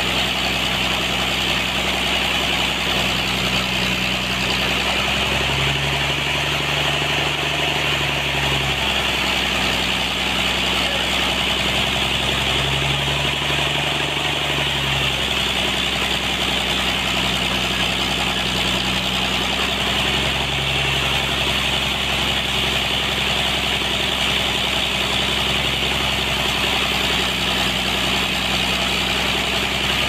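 Sawmill machinery running steadily: an engine hum with a hiss above it. A deeper tone steps up in pitch for a few seconds three times, then drops back.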